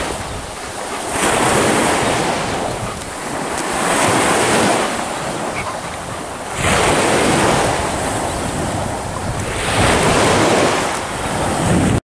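Sea waves washing onto the beach, swelling and ebbing about every two to three seconds, with wind buffeting the microphone.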